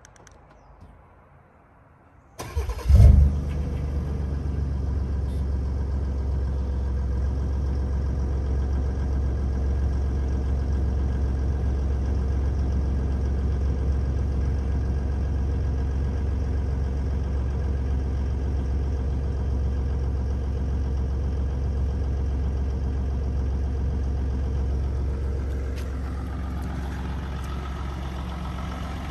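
Ford F-150's 3.0-litre Power Stroke V6 turbo-diesel cold-starting through an aFe DPF-back exhaust: a brief crank about two seconds in, a loud flare as it catches, then a steady idle. It becomes a little quieter near the end.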